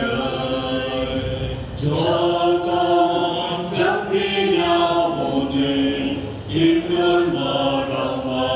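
A church choir singing a hymn with voices holding notes of about a second each, moving in steps from note to note.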